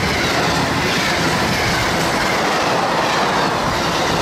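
Passenger train rolling past at speed: a steady rush of wheels on the rails as the locomotive and stainless-steel coaches go by.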